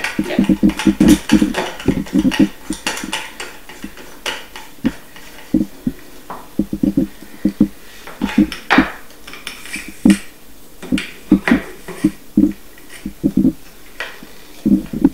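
Irregular clicks, knocks and light rattles of a metal detector's parts being handled and fitted together: the shaft being set onto the round search coil and its sections worked into place by hand.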